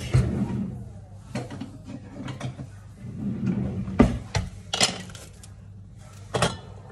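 Kitchen clatter of cookware and utensils being handled: about six separate sharp knocks and clinks, the loudest about four seconds in, over a steady low hum.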